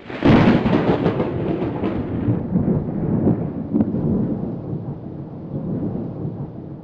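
Thunder sound effect: a sudden crack followed by a long, low rumble that slowly fades.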